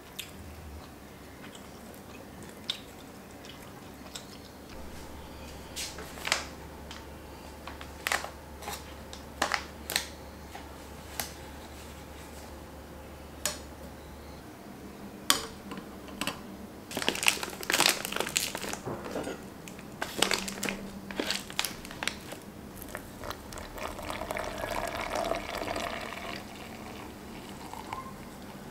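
Soft kitchen handling sounds. In the first half there are scattered single clicks of a wooden spoon and chopsticks against a ceramic bowl. After that comes a dense run of crinkling and scraping as ground coffee is scooped from a foil coffee bag, and then water is poured into a glass French press.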